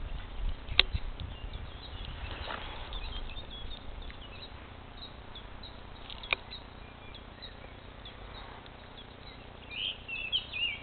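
Small birds chirping and calling in the background, with a louder run of chirps near the end. Two sharp clicks are heard, one about a second in and one about six seconds in.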